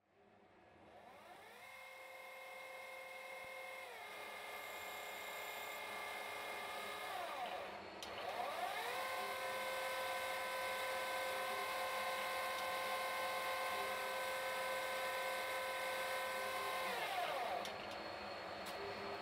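CNC lathe spindle whining as it spins up, runs at steady speed for a couple of seconds, then winds down, all over a steady hiss. About eight seconds in it spins up again, holds a steady whine for about eight seconds, and winds down near the end.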